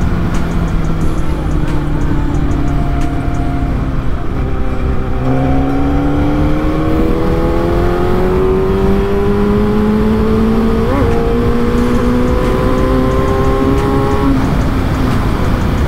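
Yamaha sport motorcycle's engine heard from inside the rider's helmet over steady wind rumble. The engine note holds, sagging slightly, for about five seconds, then climbs slowly and steadily as the bike accelerates, and drops away about a second before the end as the throttle closes.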